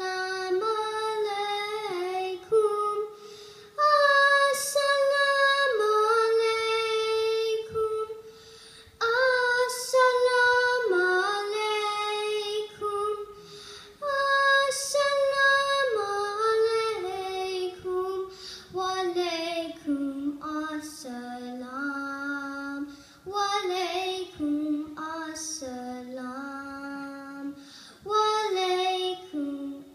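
A young girl singing solo into a handheld microphone: a slow melody of long held notes with short pauses between phrases, one voice and no accompaniment.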